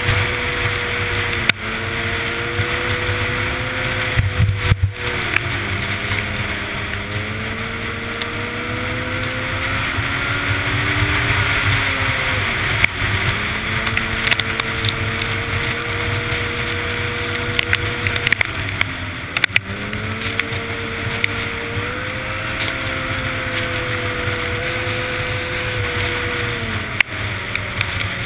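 Snowmobile engine running hard at speed; its pitch drops and climbs back about four times as the throttle eases and opens again. Wind rushes steadily over the helmet-mounted microphone.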